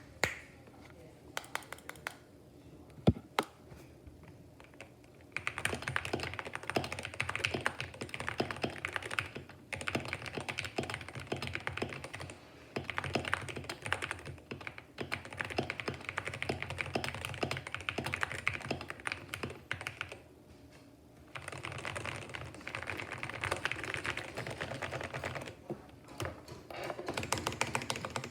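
Typing on a GK61 60% mechanical keyboard: a few single keystrokes at first, then fast continuous typing in long runs broken by short pauses.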